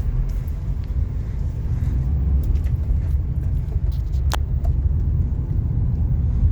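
Kia Carens being driven, a steady low rumble of engine and road noise, with a brief sharp tick about four seconds in.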